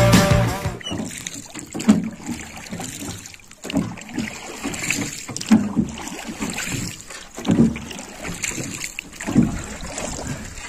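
Rowing boat under way: repeated oar strokes, a dull knock and splash every one to two seconds, over a low wash of water. Background music fades out in the first second.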